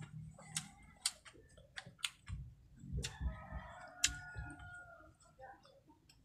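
Close-up eating sounds: crisp clicks and crunches of chewing a fried shrimp fritter with rice. About three seconds in, a drawn-out pitched call sounds in the background for about a second and a half.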